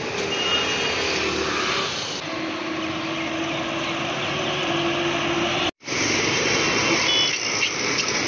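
Steady roar of city street traffic with a faint engine hum in it, broken by an abrupt cut a little over five seconds in and then resuming.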